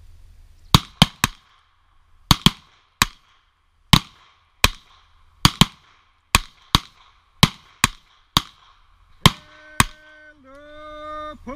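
A rapid series of revolver shots, sharp cracks with a short echo, about nineteen in some nine seconds, more than one gun firing on the command to fire. Near the end a steady pitched tone sounds twice, first for about a second and then for nearly two.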